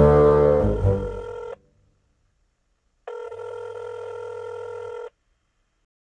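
A bass-heavy held chord, the end of the song, dies out about a second and a half in. After a short silence, a steady electronic telephone tone sounds for about two seconds and cuts off.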